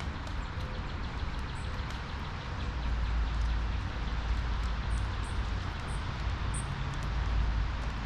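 Birds giving a few short, high chirps about five to seven seconds in, over a steady hiss and a low rumble that grows louder in the middle.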